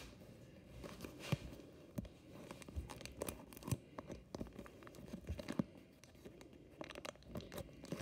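Plastic courier mailer bag crinkling and crackling as it is pressed, handled and cut open with scissors, in irregular crackles and snips.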